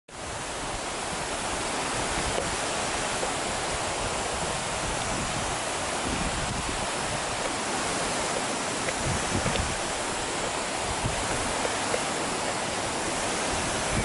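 Shallow creek flowing over a rocky bed: a steady rush and babble of running water.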